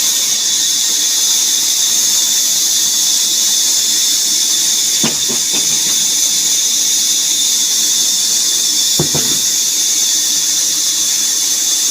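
Woodworking saw machine running with a steady high-pitched whine and hiss, with two brief knocks, about 5 and 9 seconds in.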